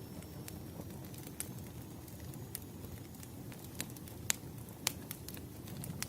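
Firewood burning: a steady low rumble of flames with irregular sharp crackles and pops, the loudest a little over four seconds in and again near five seconds.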